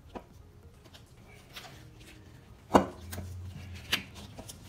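Handling noises as a dirt-bike tire is pushed onto its spoked rim by hand: faint rubbing, one sharp knock nearly three seconds in and a lighter knock about a second later.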